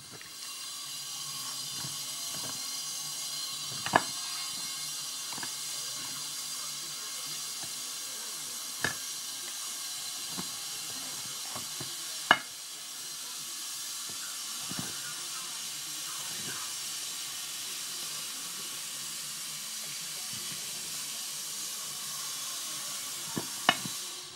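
A steady high hiss of unclear origin, with a few sharp cracks from a bull terrier crunching a cooked pig's face. The loudest crack comes about twelve seconds in.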